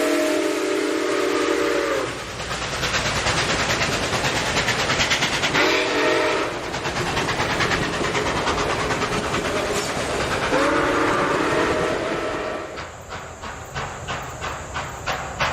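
Small steam locomotive sounding its multi-tone whistle three times, with fast, steady chuffing and steam hiss in between. Near the end the exhaust beats come as distinct puffs, about three a second.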